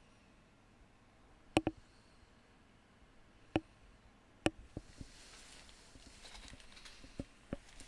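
A few separate sharp knocks and clicks, two of them close together near the start, and a soft rustling from about halfway through.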